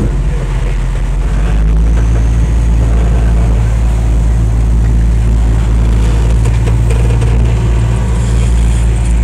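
Heavy diesel engine running steadily with a deep drone that grows louder about two seconds in and then holds, heard from inside a truck cab.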